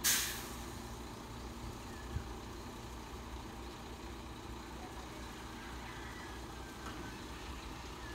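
Dump truck's diesel engine running steadily at idle while its bed is raised to tip a load of soil, with a short hiss right at the start.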